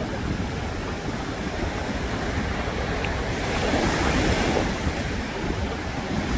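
Sea waves breaking and washing up a sandy beach in a steady hiss, one wash swelling louder about halfway through. Wind buffets the microphone with a low rumble.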